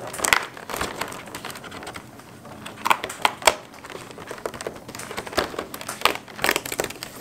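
Cardboard advent calendar box being opened by hand: crinkling and rustling packaging with scattered sharp clicks and crackles, bunched into a few handling bursts.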